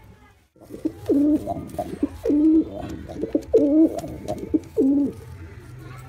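Domestic pigeon cooing: four throaty coo phrases, each dropping in pitch, with shorter notes between them.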